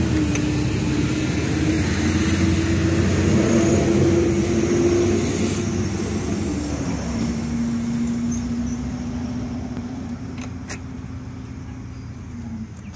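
An engine running with a steady hum. Its pitch steps down about halfway through and the sound gradually fades, with a few faint clicks near the end.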